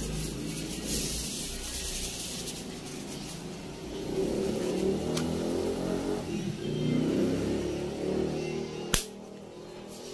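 Foam wrapping sheet crinkling as it is pulled off a small plastic battery charger, then a swelling, droning mid-pitched sound that rises and falls over several seconds. A single sharp click about nine seconds in, after which everything is quieter.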